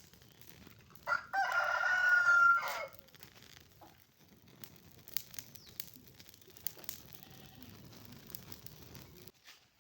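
A rooster crowing once, a single crow of under two seconds about a second in, followed by faint scattered clicks.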